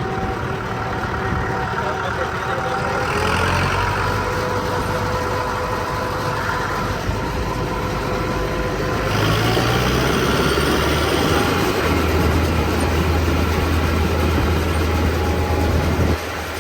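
Massey Ferguson 5900 tractor engine running steadily while the tractor is driven along the road. Its note shifts about nine seconds in and grows heavier in the low end from about twelve seconds.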